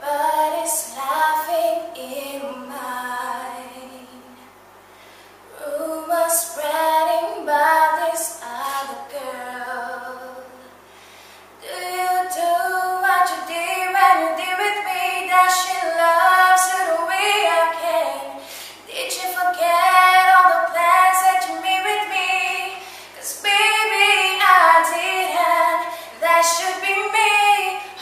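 A young woman singing solo and unaccompanied, in long held phrases with two short breaths between them, about 4 and 11 seconds in.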